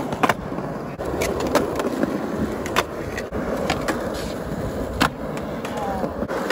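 Skateboard wheels rolling on concrete, with several sharp clacks of the board striking the ground, the loudest about five seconds in.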